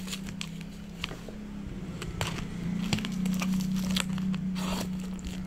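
Cardboard packaging being handled and opened: crinkling, rustling and tearing with scattered sharp clicks. A steady low hum runs underneath and grows a little louder about three seconds in.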